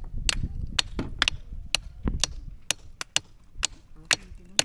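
Sharp knocks of hard shell being struck, about a dozen in a loose rhythm of two or three a second, as spider conch shells are knocked open to get the meat out.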